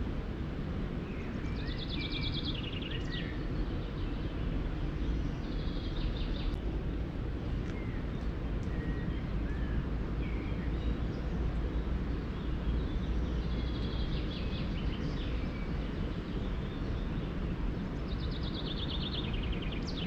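A songbird sings a fast trill that falls in pitch about four times, a few seconds apart, with a few short chirps between. Under it is a steady low outdoor rumble.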